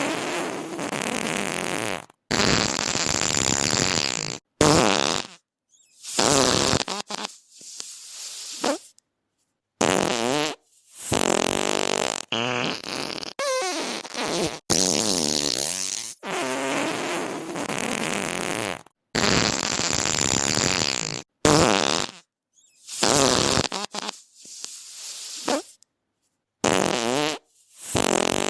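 A string of about twenty fart sound effects, one after another. Each lasts from a fraction of a second to a few seconds, and they are split by abrupt silent gaps. Many have a wobbling, sputtering pitch.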